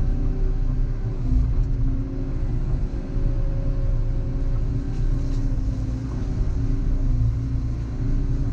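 Volvo EC140EL excavator's diesel engine running steadily under working load, with a pitched whine that rises and falls a little as the machine works.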